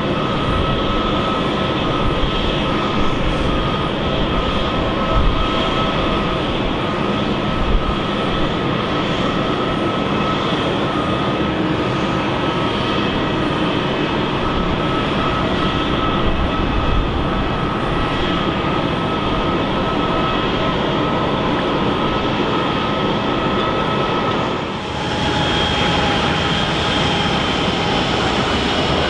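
Airbus A319-132's IAE V2500 jet engines running steadily with a constant whine over a roar. About 25 s in the sound breaks off abruptly and returns with a high whine that slowly falls in pitch.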